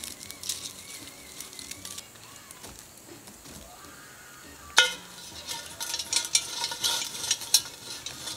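A metal fire tool scraping and clinking through campfire coals. A little past halfway comes one sharp, ringing clank of a cast-iron Dutch oven, the loudest sound, followed by a run of clinks and scrapes as the pot is settled onto the coals.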